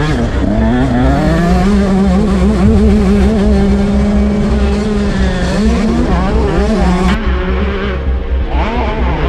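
125cc two-stroke motocross bike engine at racing revs, revving up hard about a second in, held high, easing off around six seconds and revving up again near the end, over a heavy low rumble.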